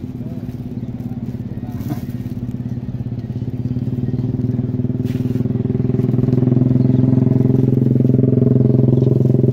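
An engine running at a steady pitch, growing louder from a few seconds in until it is the loudest thing near the end. A plastic bag crinkles briefly as it is handled, around two and five seconds in.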